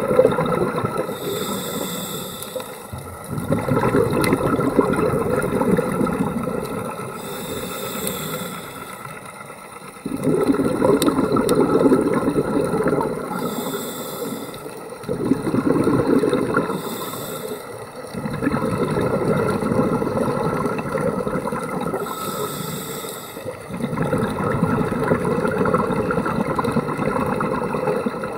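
Scuba diver breathing through a regulator underwater: a short hissing inhale, then several seconds of exhaled bubbles rushing out, repeated about five times.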